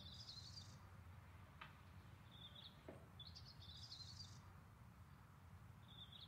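Faint birdsong: short, high chirping phrases from a small bird, about four of them, some brief and some longer, over a low steady hum of room tone. Two faint clicks come in the middle.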